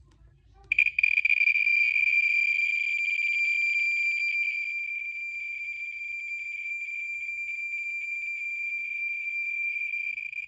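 Handheld radiation detector sounding over a natural uranium ore specimen. It starts about a second in with a high-pitched note, its counts coming so fast that they merge into one nearly continuous buzzing tone, a high count rate from the uranium.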